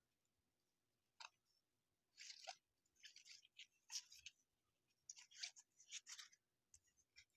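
Faint, scratchy swishes of baseball trading cards sliding against one another as a pack is flipped through, in about six short bursts.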